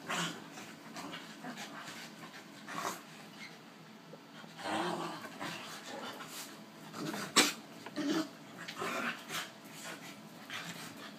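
Small dogs play-fighting on a bed: scuffling and rustling bedding, with short bursts of growling and panting. A single sharp knock about seven seconds in.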